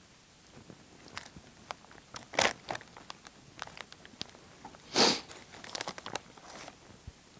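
Takis rolled tortilla chips crunching as they are eaten, mixed with the crinkle of the foil chip bag as a hand reaches in. The sounds come in irregular snaps and rustles, with two louder bursts about two and a half and five seconds in.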